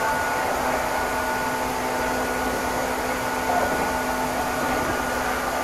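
Meitetsu Inuyama Line express train running, heard from inside the passenger car: a steady rumbling noise with a low hum and a few held, unchanging tones over it.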